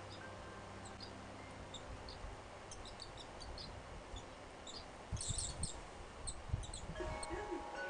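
Faint, short high chirps of barn swallows at the nest, scattered throughout with a quick flurry of twittering about five seconds in. A few low thumps come at the same time.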